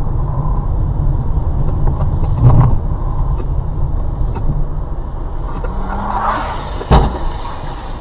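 A car driving, with a steady low rumble of engine and road noise, and one sharp thump about seven seconds in.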